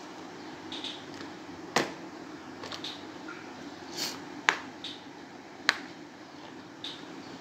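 Clear plastic tool case being picked up and handled, giving three sharp clicks and a few softer taps and rustles. A steady low hum runs underneath.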